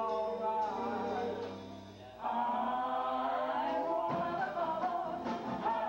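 A live banjo band playing a song, with voices singing. The music thins out briefly, then comes back in full about two seconds in.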